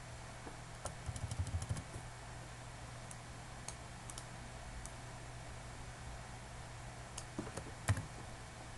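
Computer keyboard keystrokes: a quick run of key presses about a second in, then a few scattered single clicks, over a steady low hum.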